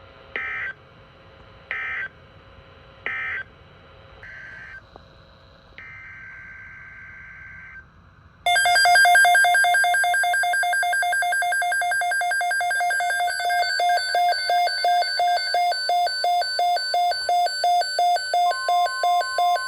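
Emergency Alert System signals from a weather radio broadcast. First come four short, screechy data-like bursts about a second apart and a brief steady tone. Then, from about eight seconds in, a loud electronic alert tone of several pitches starts; it turns into rapid pulsing beeps, about two a second, with a steady single tone joining near the end.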